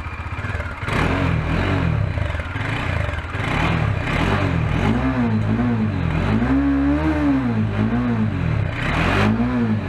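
Bajaj Dominar 400's single-cylinder engine idling, then revved in a series of short throttle blips, with one longer rev about two-thirds of the way through. The exhaust note is deep, bassy and thumpy.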